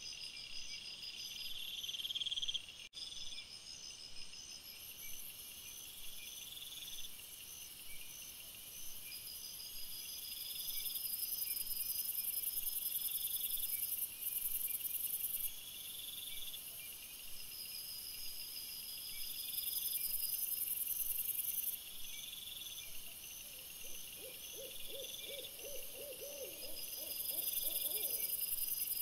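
Night insects, crickets and the like, chirring steadily in high, pulsed trains that swell and fade. Near the end there is a brief run of lower, rapid pulses.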